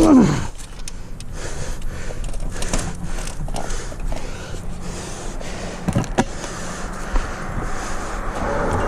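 Steady background traffic noise, with a short falling tone right at the start and two sharp knocks about six seconds in; the traffic noise swells near the end.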